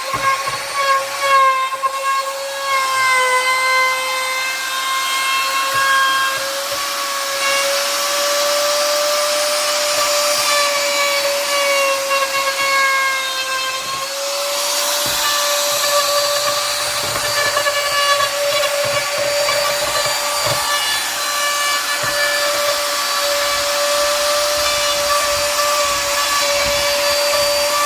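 Handheld electric power tool working a wood slice: a steady high motor whine that wavers slightly in pitch under load, over a hiss of the wood being worked that grows brighter about halfway through.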